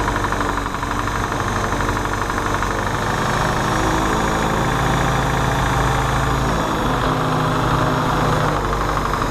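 Ford GPW jeep's four-cylinder flathead engine idling steadily during its first start-up, its speed rising a little and settling back in the middle.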